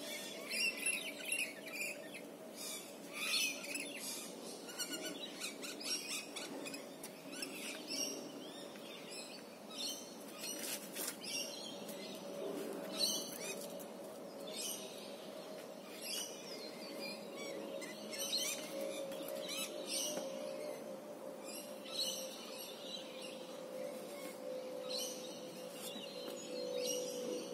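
Wild birds chirping and calling repeatedly in bushland, with a faint steady tone running underneath.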